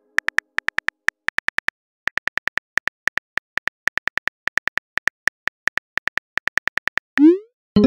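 On-screen keyboard typing clicks from a texting app, rapid and even at about six a second with a short pause near two seconds in. About seven seconds in, a short rising whoosh as the message is sent, then a pitched note just begins at the end.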